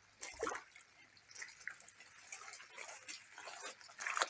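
Rainwater dripping and splashing: irregular drips, with a louder splash about half a second in and another near the end.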